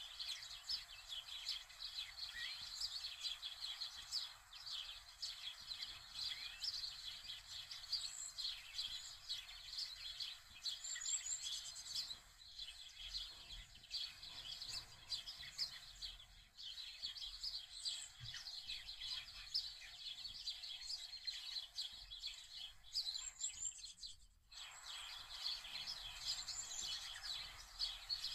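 Many small birds chirping and twittering in a dense, continuous chorus of quick high notes, with an occasional higher sweeping whistle; the sound cuts out for a moment about 24 seconds in.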